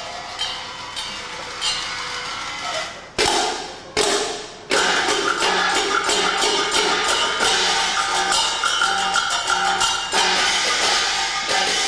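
Chinese stage percussion duo playing small hand cymbals and other hand percussion: light, even taps at first, two loud clashes about three and four seconds in, then from about five seconds a dense, rhythmic clashing that keeps going.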